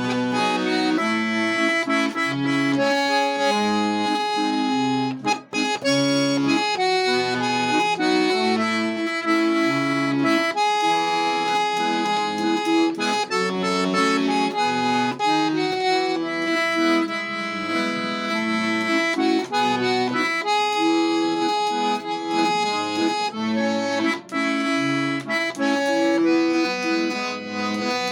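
Accordion playing a melody over held chords and moving bass notes, with a brief break about five and a half seconds in.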